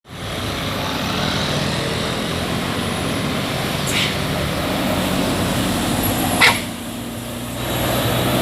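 Large diesel bus engine running steadily, with two short sharp sounds about four seconds and six and a half seconds in, the second the loudest.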